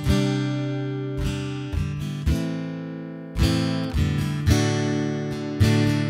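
Background music: acoustic guitar strumming chords, each strum ringing out and fading before the next.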